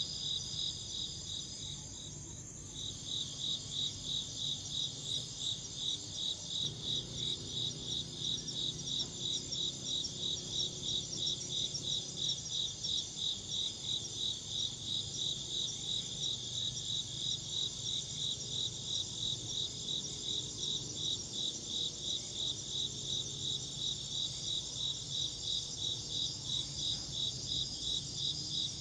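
Insects chirping: one insect gives an even, rapid rhythm of chirps over a steady higher-pitched trill from others, pausing briefly about two seconds in before resuming.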